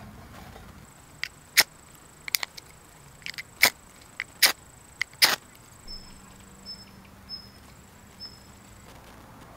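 A hand fire starter struck about a dozen times in quick, sharp strikes, throwing sparks onto a piece of homemade char cloth to test whether it will take an ember.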